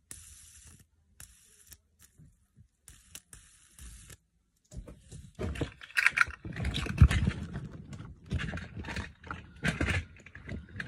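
Plastic fidget toys being handled, with irregular scraping, clicking and rustling. It is faint at first and grows busier and louder about five seconds in.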